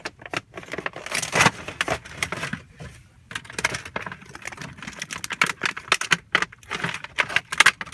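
Toy packaging and plastic track pieces being handled: an irregular run of clicks, taps and rattles with crackly rustling.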